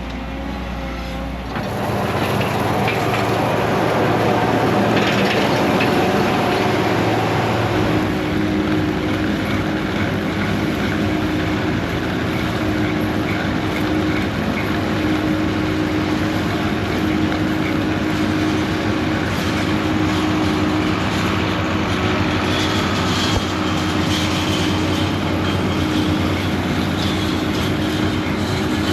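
Diesel engine of heavy tile-installation machinery running steadily under load, with a mechanical clatter. The sound shifts abruptly about two seconds in and again about eight seconds in.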